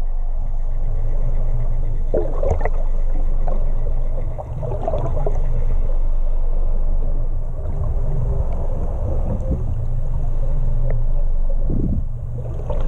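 Fishing boat's engine running steadily under way, a continuous low rumble.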